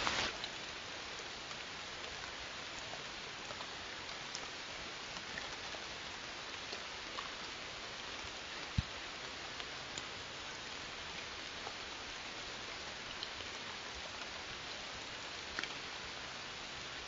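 Steady even hiss from a trail camera's microphone, a little louder for the first half second, with scattered faint ticks and one sharper click about nine seconds in.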